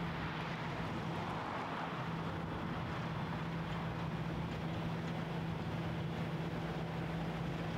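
Steady drone of running machinery: a constant low hum under a broad hiss, the hiss swelling slightly about a second in.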